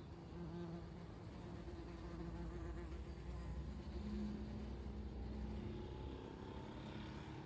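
Yellow jacket wasps buzzing with their wings: a low, wavering hum that rises slightly in pitch and is loudest about halfway through.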